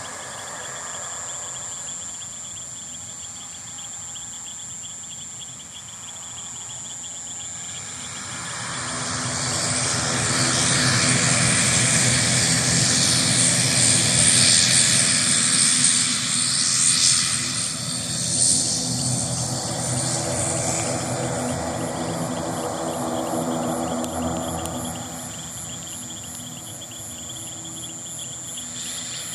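An aircraft's engines passing, swelling to their loudest from about ten to seventeen seconds in and then fading away, over the steady chirring of crickets.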